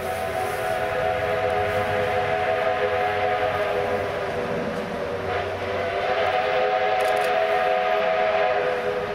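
Steam locomotive whistle of the 2-6-2 tank engine Robert Dollar #3, blown in one long steady blast that sags briefly midway and then comes back strongly.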